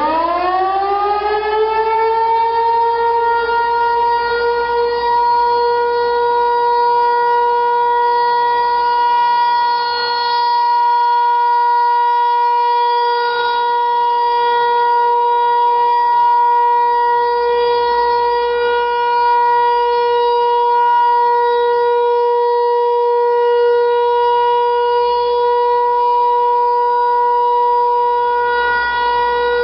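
Federal Signal Equinox electronic tornado siren sounding a steady alert tone in a test. Its pitch climbs at the start and settles within about two seconds into one held, even tone.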